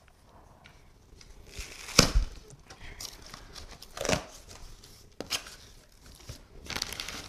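Small cardboard box being torn open by hand: tape and flaps ripping. There is a sharp thump about two seconds in, the loudest sound, another about four seconds in, and rustling and crinkling near the end.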